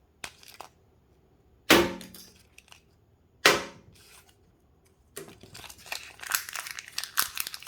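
Kinder egg wrappers being torn open and crinkled: two sharp sudden sounds about two seconds apart, then a longer stretch of fast crinkling and tearing near the end.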